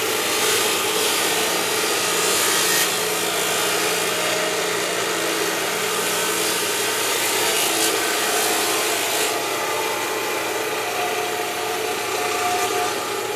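Marble-working machine grinding stone: a steady, rough rasping noise, with a brighter hiss over the first few seconds and again around eight to nine seconds.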